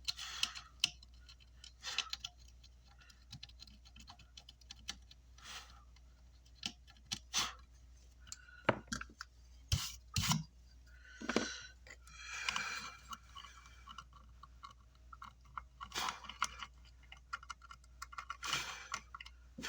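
Excess solder flux being scrubbed off an amplifier circuit board, in short scratchy strokes, with scattered clicks and taps of small tools on the bench.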